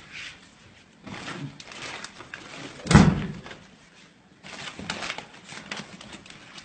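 Handling noise from plastic bags and cloth being rummaged through in a packed bag, with a single heavy thump about three seconds in.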